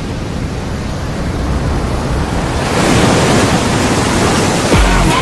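Steady rushing noise that swells louder and brighter a little past halfway, a rising whoosh. Near the end, deep booming drum hits begin as the music comes in.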